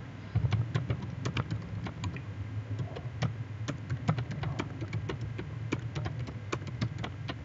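Typing on a computer keyboard: irregular key clicks, several a second, over a steady low hum.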